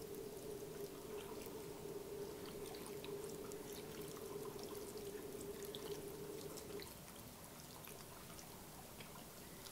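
Guinness stout poured in a thin stream from a can into a slow cooker over potatoes and vegetables: a faint, steady pour that eases off about seven seconds in.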